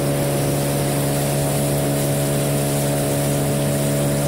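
Mercury 15 hp outboard motor running steadily under way, pushing a 6-metre aluminium boat loaded with about 330 kg. It makes an even, unchanging drone.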